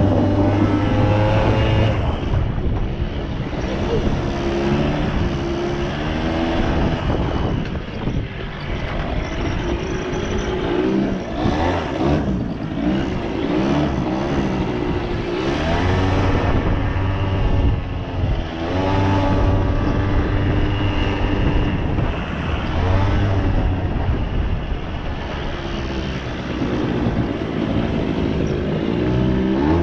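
Suzuki LT80 ATV's small two-stroke single-cylinder engine running, revving up and falling back over and over, its pitch rising and dropping with each change of throttle.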